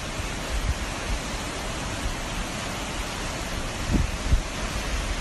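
Steady rushing noise of the Musi river in spate, fast floodwater pouring past a wall, with a couple of low thumps on the microphone about four seconds in.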